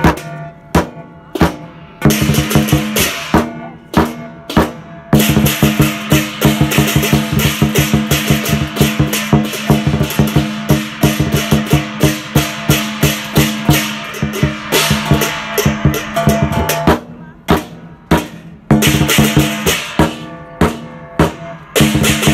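Lion-dance percussion music: a drum beating fast with cymbals crashing over sustained ringing tones, broken by a short pause about a second in and another past the middle.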